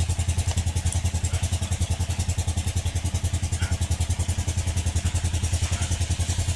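An engine running steadily in the background, with a fast even pulse of about ten beats a second and a strong low hum.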